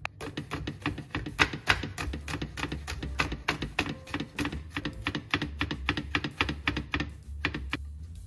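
Chef's knife rapidly chopping peeled garlic cloves on a wooden cutting board: a fast, even run of blade knocks on the wood, mincing the garlic, which stops just before the end.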